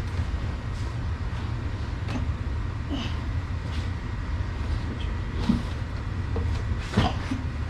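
Steady low rumble of an air conditioner, with scattered small creaks and knocks from an arm-wrestling bout, and a sharper knock near the end.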